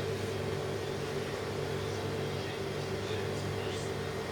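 Steady mechanical hum of a motor or fan running, holding a constant low pitch.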